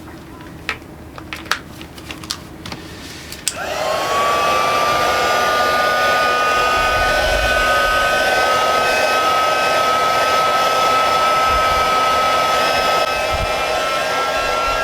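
A few light clicks, then about three and a half seconds in a small electric motor appliance switches on and runs steadily, its whine rising as it spins up and then holding over a rushing hiss.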